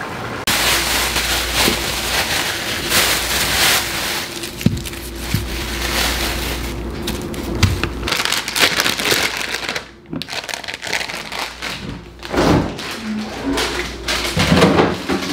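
A steady rushing noise with a low hum that stops about eight seconds in. Scattered knocks, taps and rustling of things being handled follow.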